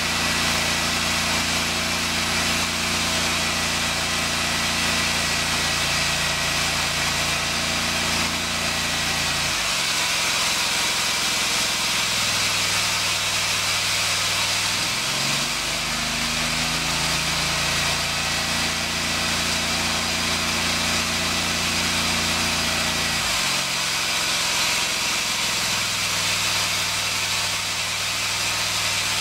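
Blown polystyrene-bead cavity wall insulation being injected through a hose into a brick wall: a steady rushing hiss over the low hum of the blowing machine. The hum steps down about ten seconds in, comes back up around fifteen seconds, and steps down again near twenty-four seconds.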